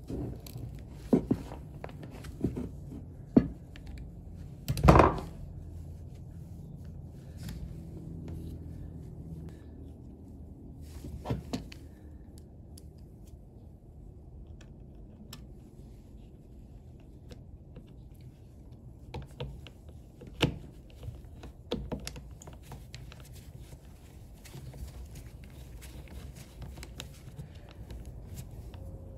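Scattered clicks and knocks of hand tools working inside a circular saw's handle: crimping pliers squeezing an insulated terminal, then a screwdriver fastening the wire to the switch. The loudest knock comes about five seconds in, with a quieter stretch in the middle and another cluster of knocks later on.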